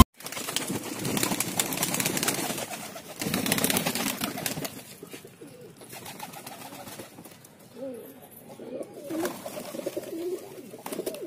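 Fancy domestic pigeons cooing: repeated low, wavering coos through the second half. Before them, about the first four seconds hold a louder stretch of rustling and light knocks.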